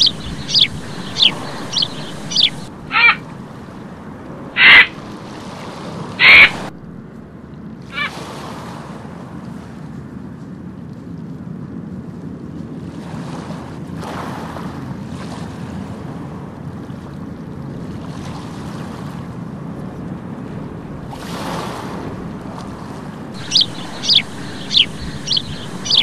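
Gulls calling: a quick run of short, high calls, then three loud, harsh calls about a second and a half apart, over the steady wash of surf. The run of short high calls comes again near the end.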